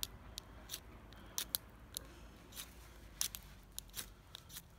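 Ferrocerium rod scraped repeatedly with a striker: about a dozen short, sharp, high scrapes at an uneven pace. The sparks are falling too far from the cotton tinder to catch.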